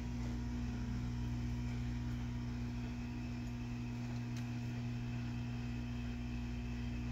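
Hot-air rework gun blowing steadily with a low hum while it heats the solder joints on a circuit board's ground plane.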